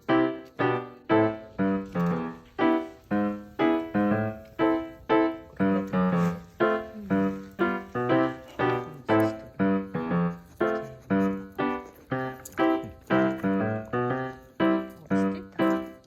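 Background music: light keyboard notes in a steady bouncy rhythm, about two notes a second, each fading quickly.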